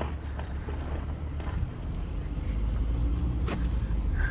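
Steady low rumble of a moving vehicle, with one sharp click about three and a half seconds in.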